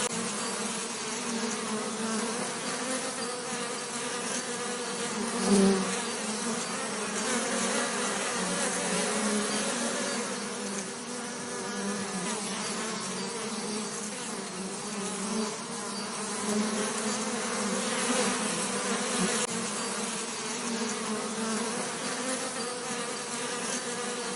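Bees buzzing in a continuous drone, with a brief louder swell, as of a bee passing close, about five and a half seconds in.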